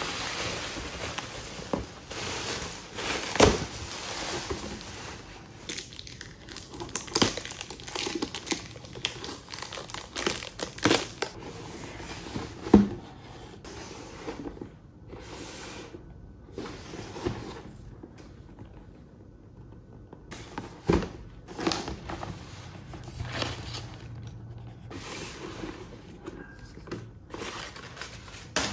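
Cardboard helmet box being handled and opened by hand: flaps scraping and creasing, paper crinkling, with many short knocks and taps. A quieter stretch comes about two-thirds of the way through.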